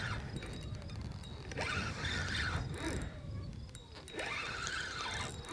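Fishing reel ratcheting under the pull of a hooked catfish, in surges about every two and a half seconds as the angler fights the fish.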